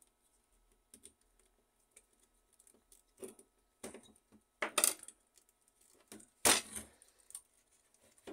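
Small clicks, taps and rattles of plastic connectors, wires and a screwdriver being handled on a laser printer's fuser assembly, with two louder clatters a little past halfway and about three-quarters through.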